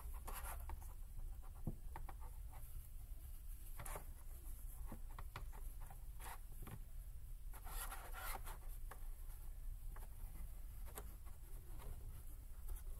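Water-soluble stabilizer rustling and scratching under the hands as the vet-tape-wrapped inner embroidery hoop is pressed down into the outer hoop: scattered short scrapes and taps, with a longer rustle about eight seconds in, over a steady low hum.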